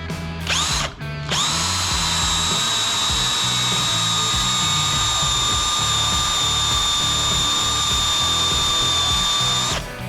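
Cordless drill drilling a 5/32-inch pilot hole into a steel wheel hub for a grease zerk. A brief trigger pull at first, then one long steady whine that cuts off near the end.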